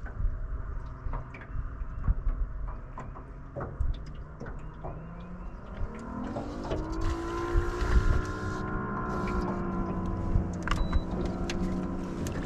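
Bow-mounted electric trolling motor whining up in pitch about six seconds in, then running steadily, over a low rumble with scattered light clicks.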